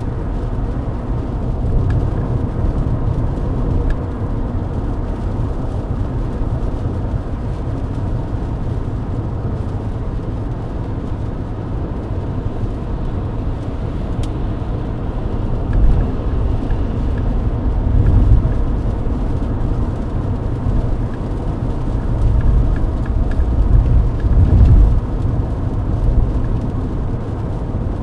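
Mercedes-Benz W124 E-Class cruising at highway speed on a wet road: a steady low rumble of road, tyre and engine noise heard from inside the car. It swells louder several times in the second half.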